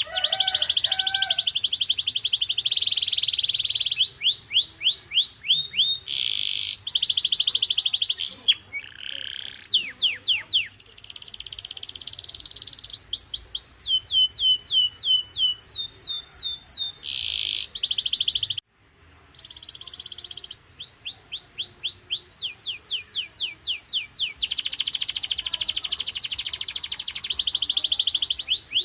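Domestic canary singing a full song in tours: very rapid buzzing rolls alternating with series of repeated down-slurred notes, several a second, with a brief break about two-thirds through.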